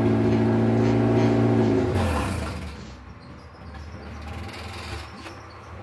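K20A2 four-cylinder engine in a K-swapped Honda Civic held at a steady raised rev. About two seconds in, the throttle is let off, a brief hiss comes with it, and the revs drop back to a much quieter idle.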